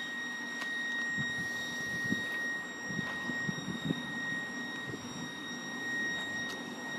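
Level crossing audible warning alarm sounding a steady high tone, fairly quiet and not sounding right, which the filmer takes for a faulty alarm whose pitch has been changing. Low rumbles from traffic or wind come and go underneath.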